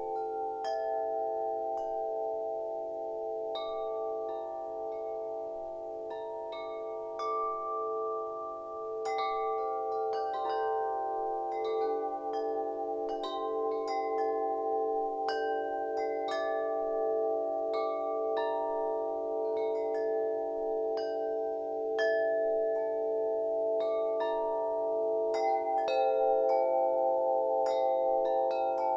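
Wind chimes ringing continuously, struck irregularly every second or so, their clear tones ringing on and overlapping into one another.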